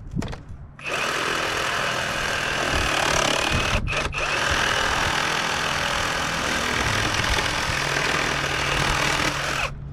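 A power tool running steadily, with a brief stop about four seconds in.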